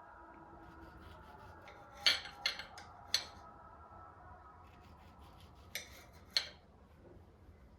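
Light clinks and taps of kitchenware being handled: three about two seconds in, then two more around six seconds, over a faint steady room hum.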